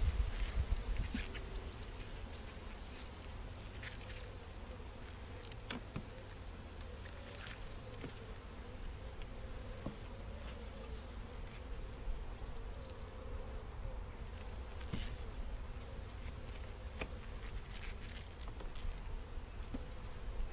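Honeybees buzzing steadily around an open hive. Now and then there are short light clicks as the wooden frames are handled.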